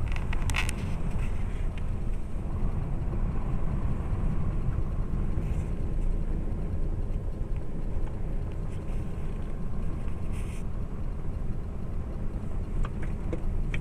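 Steady low rumble of a car on the move: road noise mixed with wind.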